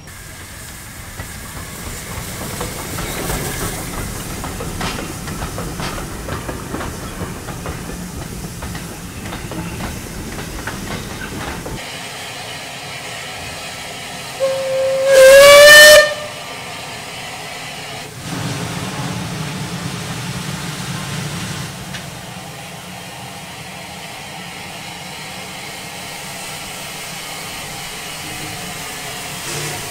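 A steam locomotive's whistle gives one short blast about halfway through, rising slightly in pitch. Steam hisses steadily around it.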